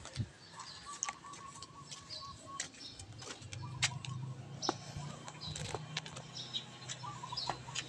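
Birds chirping in short repeated calls, with scattered sharp clicks and light knocks over a faint low hum.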